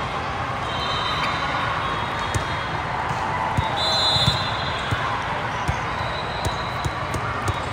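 Volleyball match play: a ball being hit and bouncing on the court, several sharp impacts over a steady murmur of crowd voices. Several brief high-pitched tones come and go.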